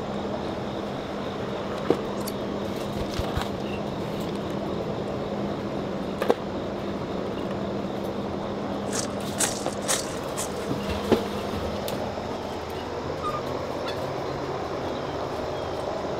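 Food bowls being set down on a concrete floor, giving a few scattered clinks and knocks over a steady mechanical hum.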